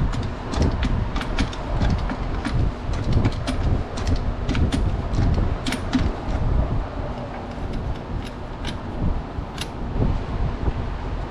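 Hand tools and metal parts being worked on during disassembly: irregular sharp clicks and knocks over a constant low rumble.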